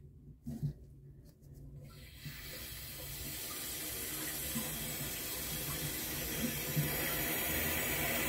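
Water hissing through the toilet's supply line as the wall shut-off valve is turned open, starting about two seconds in and growing steadily louder. A few small knocks from handling the valve come before it.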